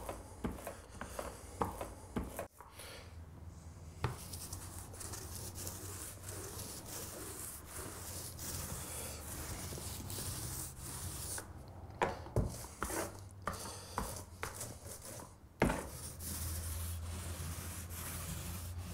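Paint roller rolling paint onto a plasterboard wall: a steady rubbing hiss in long passes, broken by a few clicks and knocks near the start and again about two-thirds of the way through.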